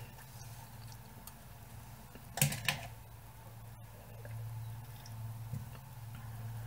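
Two short knocks about two and a half seconds in, then quiet drinking from a ceramic mug as a protein shake made with leftover cereal milk is drunk, over a low steady hum.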